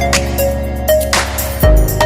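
Background music with an electronic beat: deep bass hits, drum strikes and a short repeating melody.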